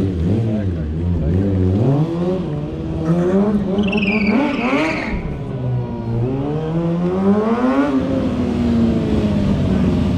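Stunt motorcycle engine revving up and down again and again, with a brief high squeal about four seconds in.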